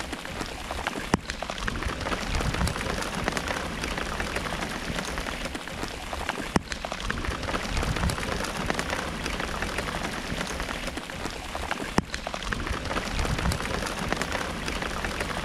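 Rain and hail falling on the lake water and the kayak: a steady hiss of drops with a few sharp taps scattered through it.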